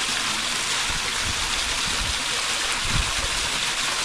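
Spring water pouring steadily from a rock and splashing onto someone showering under it, with a couple of dull low thumps, one about a second in and one about three seconds in.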